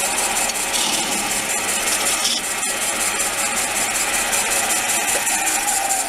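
Wood lathe cutting the inside of a spinning wooden bowl with a scraper tool made from a drill bit: a steady hissing scrape of shavings peeling off over the hum of the lathe's 370 W motor.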